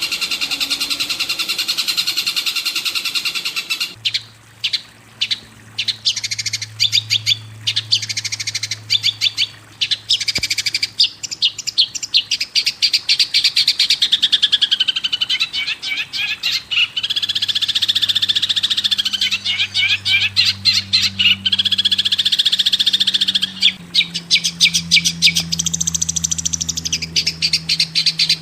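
Recorded songbird calls: rapid chattering and trilled phrases repeated over and over, used as song material for training a long-tailed shrike. About four seconds in, a dense steady high chorus gives way to quick clicking chatter.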